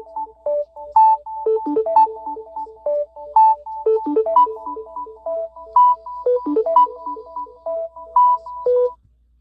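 Samsung Galaxy A71 5G ringtone playing: a quick electronic melody of short, clear notes, a higher line over a lower accompanying line, which stops about nine seconds in.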